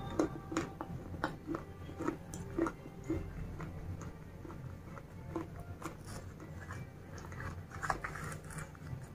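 Close-miked crunching and chewing as a person bites through hard broken slate pieces coated in paste. There are sharp crunches at first, softer chewing in the middle, and another burst of crunches near the end.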